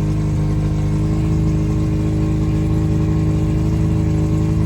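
Honda outboard motor running steadily at a fast idle out of gear, being let idle down.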